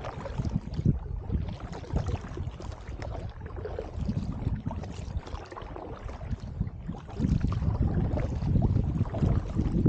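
A double-bladed paddle dipping and splashing into the water with each alternating stroke of an inflatable kayak, water running off the blades. Wind rumbles on the microphone, heavier in the last few seconds.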